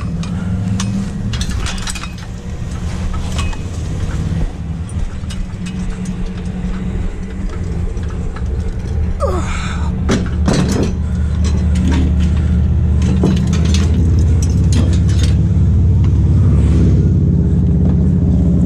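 Pickup truck engine idling, a steady low hum that grows louder over the last few seconds, with light clinks and knocks from the metal scrollwork of a wrought-iron chandelier being carried and laid into the truck bed.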